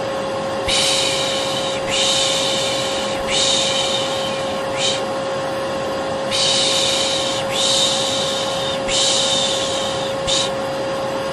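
Vacuum cleaner running with a steady drone and hum, overlaid with a looped shushing 'shhh' sound used to soothe a baby. The long shushes repeat about every second or so, with short gaps between them.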